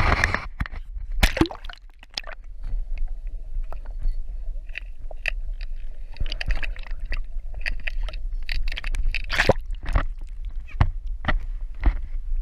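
Water sloshing and slapping against a boat hull, with irregular knocks and a steady low rumble.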